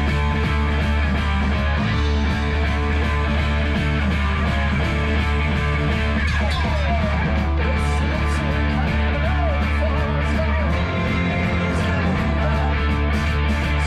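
Rock band playing live: distorted electric guitars over drums.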